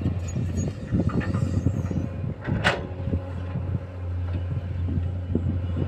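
Diesel engine of an excavator working beside a loaded dump truck, running with a steady low hum, with irregular knocks from the digging and one sharp knock about two and a half seconds in.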